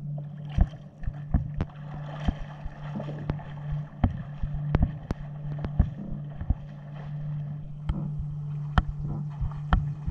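Swimming-pool water lapping and sloshing against a waterproof camera case at the surface, with frequent irregular sharp taps of water striking the case, over a steady low hum.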